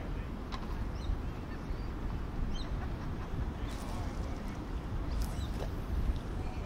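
Waterside ambience: a steady low rumble of wind and water, with brief bird calls and chirps scattered through.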